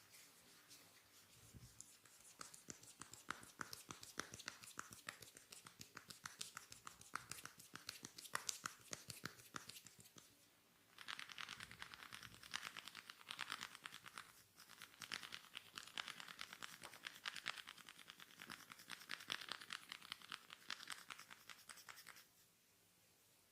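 Fingers scratching rapidly through hair on the scalp during a head massage. A denser, louder stretch of scratching starts about eleven seconds in and stops suddenly near the end.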